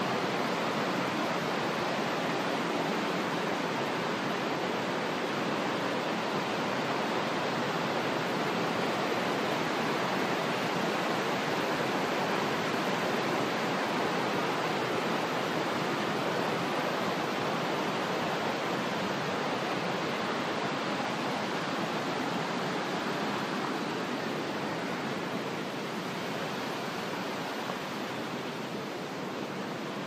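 Mountain waterfall and its torrent rushing over rocks in a steady, full white-noise roar, growing a little fainter near the end.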